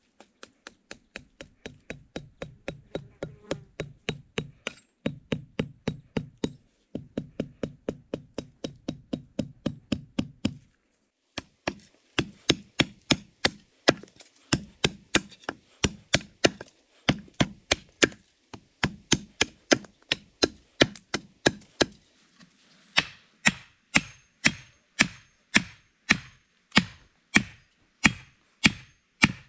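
Small hatchet chopping wood in quick, steady strokes, a few a second, as a wooden stake is pointed on a log. About three-quarters of the way through the knocks turn sharper and brighter as the stake is stood upright and struck with the hatchet.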